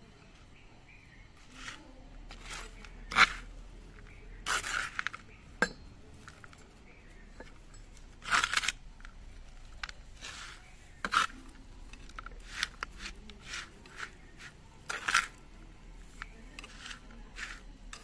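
Small garden trowel scooping and stirring potting soil in a rust-stained metal tray: irregular short scrapes, the blade now and then grating and clinking on the tray.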